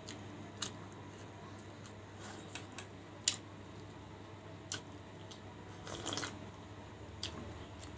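Close-up eating sounds: chewing with scattered short wet mouth clicks and smacks, and a slurp about six seconds in as tamarind sour soup is sipped from a bowl.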